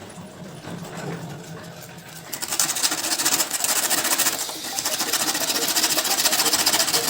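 A small motor running with a fast, buzzing rattle. It starts quietly and becomes loud about two seconds in.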